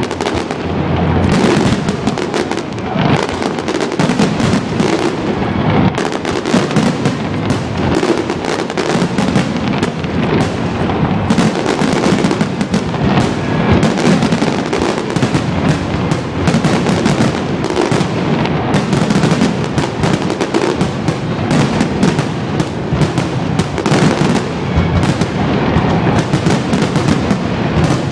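Fireworks display in a dense, continuous barrage of rapid bangs and crackling, with no pause between bursts.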